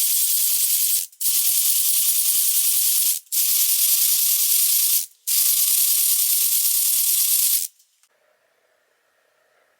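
Four long bursts of loud hissing with a faint wavering whine under the hiss, each about one and a half to two seconds with short breaks between, stopping about three-quarters of the way through.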